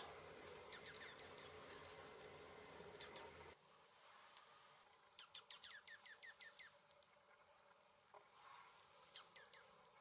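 Small songbirds chirping faintly: two quick runs of high, downward-sliding chirps and a few sharp single chip notes.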